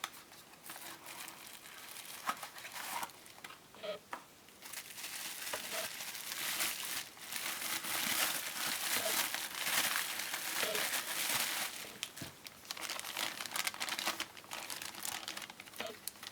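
Plastic packaging crinkling and rustling as a new dashcam is unwrapped from its protective wrapping, with scattered small clicks; busiest through the middle of the stretch.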